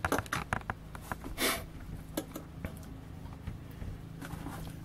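Light clicks and taps, several close together in the first second and a few scattered later, with a short rustle about a second and a half in, over a faint steady low hum.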